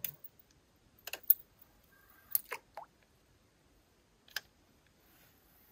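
About six short, sharp plastic-and-metal clicks and knocks, irregularly spaced, from hands working a fishing rod and reel.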